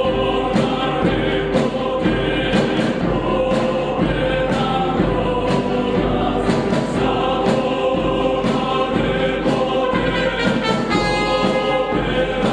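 Background music: a choir singing over orchestral accompaniment with a steady beat.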